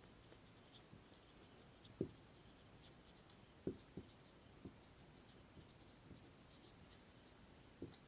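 Faint scratching of a marker pen writing on a whiteboard, with a few soft taps as the tip meets the board, one about two seconds in and a couple near the middle.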